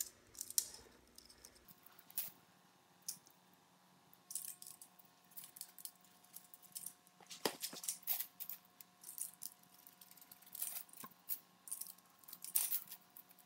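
Spline roller tool pressing rubber spline into a window screen frame's channel: scattered light clicks and scrapes at an uneven pace as the mesh is tightened.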